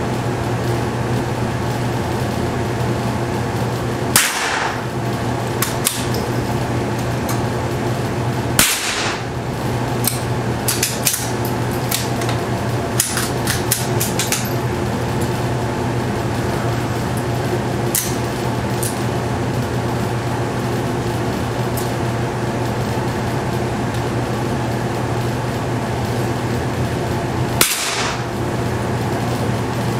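Three .22 LR shots from a Tikka T1X bolt-action rifle, sharp cracks about 4, 9 and 28 seconds in, each trailing a brief echo, with lighter clicks between them. A steady low fan hum runs underneath.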